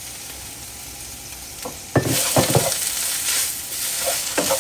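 Spinach and tikka masala paste frying in a non-stick pan: a faint steady sizzle that turns suddenly loud about two seconds in, as squeezed-out defrosted spinach meets the hot pan. A wooden spoon stirs through it, with a few short knocks against the pan.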